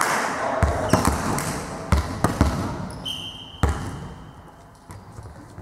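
A volleyball being bounced on a sports-hall floor by the server before a serve: a string of separate low thuds, about half a dozen. Noise from the hall dies away at the start. A referee's whistle sounds one long steady note from about halfway in, signalling the serve.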